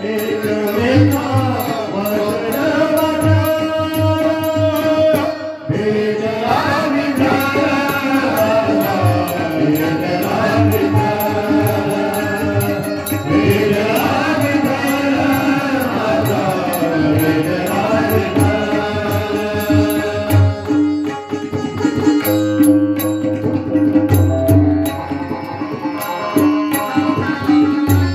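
A man sings a Marathi devotional song to Vitthal in a deep, full voice, over tabla and other instruments with a steady held drone.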